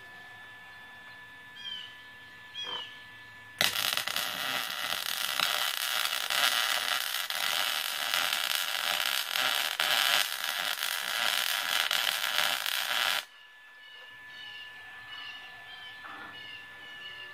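Electric arc welding on half-inch rebar: a steady crackling arc that starts suddenly about three and a half seconds in, holds for about nine and a half seconds, then cuts off. Birds chirp before and after it.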